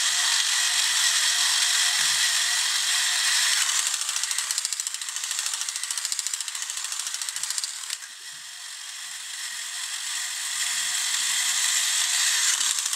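Battery-operated tin toy robot running, its motor and gears making a fast, continuous ratcheting clatter that drops back around the middle and builds again toward the end.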